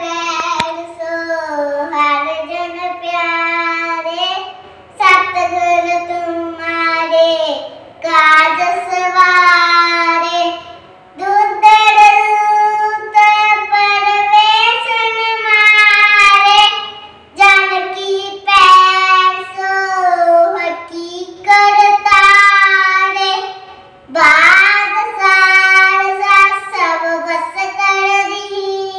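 A young girl singing Gurbani, a Sikh hymn, unaccompanied. She sings in phrases of a few seconds, with short breaks between them, and holds steady notes.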